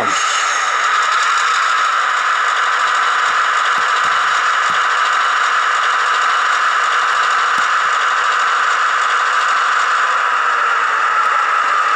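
HO-scale Athearn Genesis GP38-2 model locomotive creeping at speed step 1, its Soundtraxx Tsunami2 decoder playing diesel locomotive sound through the small onboard speaker. A steady, even sound with almost no deep bass.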